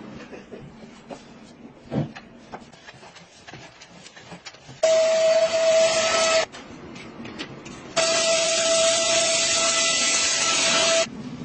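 A small electric appliance switched on in two bursts, a short one and then a longer one of about three seconds, each a loud hiss with a steady whine that starts and stops abruptly. Light clicks and taps come before it.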